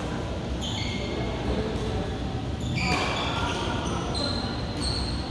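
Court-shoe soles squeaking in short, high chirps on a badminton court floor, with one sharp knock about three seconds in, echoing in a large hall.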